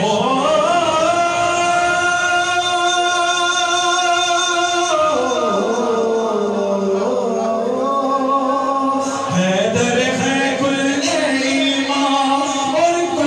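Men singing an Urdu devotional song into microphones, drawing out long held notes: one long note for about the first five seconds, a slide down, then another held phrase from about nine seconds in.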